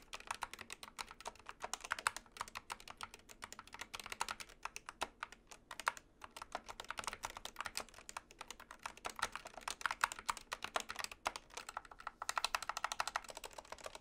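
Typing on an Epomaker SK71 compact keyboard with Gateron red linear optical switches and double-shot PBT keycaps: a fast, continuous stream of key clacks, broken by a couple of brief pauses.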